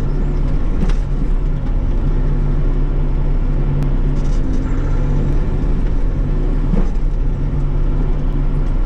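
Bobcat E42 mini excavator's diesel engine running steadily, heard from inside the cab while the boom and bucket dig at a tree stump, with a few faint knocks.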